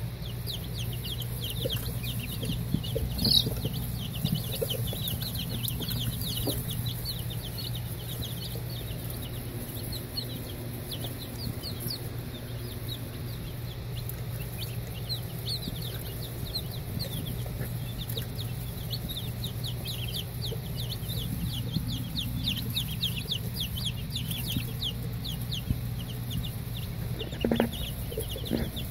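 A brooder of baby chicks and turkey poults peeping, many short high cheeps a second without pause. A steady low hum runs underneath.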